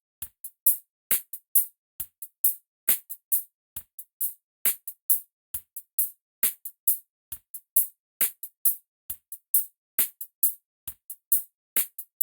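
Gated hi-hat track from a drum loop: short, crisp hi-hat hits in a sixteenth-note pattern, each cut off to silence by a noise gate, some carrying a little kick and snare underneath.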